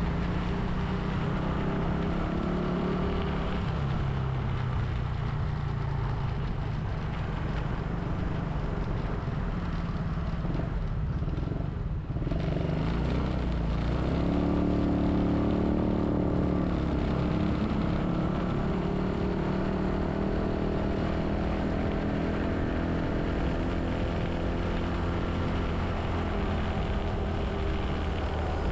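A motor vehicle's engine running while driving through city traffic, with road noise. The engine note drops briefly about twelve seconds in, then rises again.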